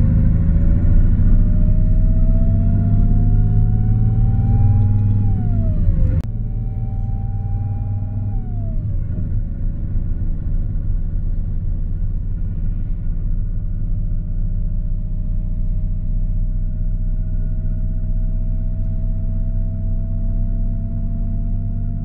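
Intercity bus engine heard from inside the cabin, accelerating through the gears: the engine note rises, drops at a gear change about six seconds in with a sharp click, rises and drops again at a second change a few seconds later, then climbs slowly over a steady low rumble.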